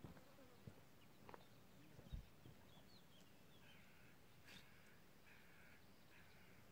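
Near silence, with a few faint footsteps on the gravel shore in the first couple of seconds. Then come faint distant bird calls: a few chirps and three short harsh calls in the second half.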